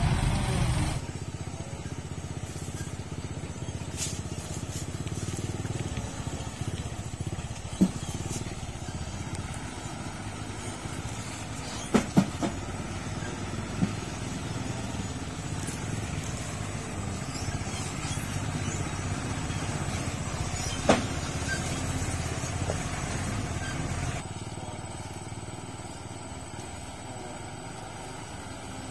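Loaded sugarcane truck's diesel engine running at low, steady revs as it crawls along a rough dirt track. A few sharp knocks or clicks come through, the loudest a close pair about halfway through.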